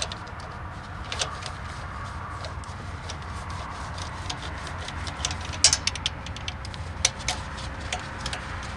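Irregular sharp metallic clicks and clinks of a hand tool and a 10 mm bolt as the bolt is started into the injector pump mount, with a handful of clicks close together a little past halfway. A steady low hum runs underneath.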